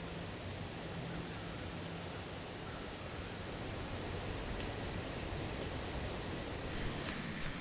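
Steady, high-pitched chorus of insects, such as crickets, holding one unbroken buzz that grows stronger near the end, over a low, even background hiss.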